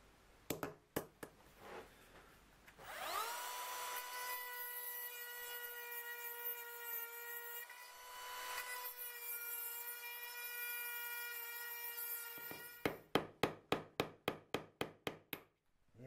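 A few light hammer taps on a punch, then a small rotary tool spins up to a steady high whine and runs for about nine seconds, grinding at the broken-off bronze seacock fitting in the saildrive housing. It stops, and a quick run of sharp taps follows, about five a second.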